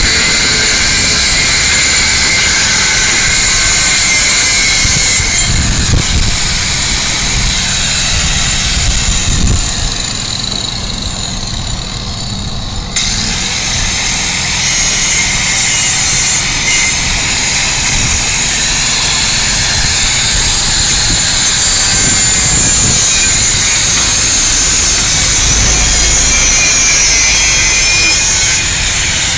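Angle grinder grinding steel: a steady, harsh, high-pitched whine whose pitch wavers under load, easing off for a few seconds around the middle before picking up again.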